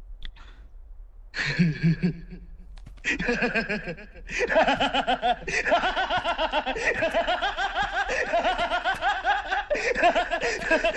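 Several men laughing together. It starts with a short chuckle about a second and a half in, then swells about three seconds in into sustained, overlapping laughter that carries on to the end.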